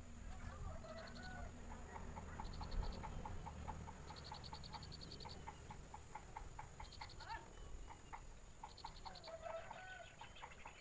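Birds calling: a steady series of short chip notes, about three a second, with short buzzy trills higher up recurring every second or two and a few lower rising-and-falling calls near the start and end, over a low rumble.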